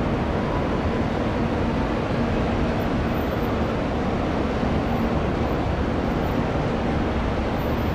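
Steady rumble of jet aircraft engines running at an airport, with a faint low hum and no rise or fall in level.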